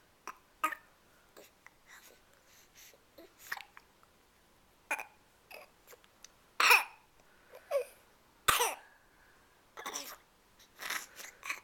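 Baby with a head cold making short snorts and coughs through a blocked, runny nose: about a dozen scattered bursts, the two loudest a little past halfway.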